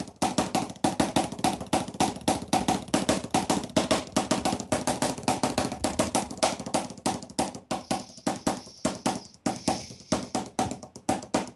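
Drumsticks playing paradiddle rudiments on a practice pad: a steady run of quick, even strokes, about five a second.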